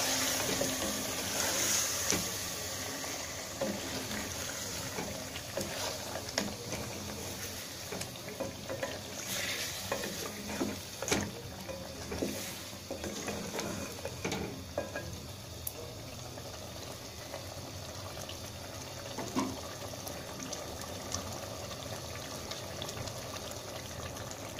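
A spoon stirring and scraping a thick tomato-and-onion masala in an aluminium pot, with irregular knocks and scrapes, over a steady sizzle of the masala frying. The stirring stops a little past halfway, leaving only the steady sizzle.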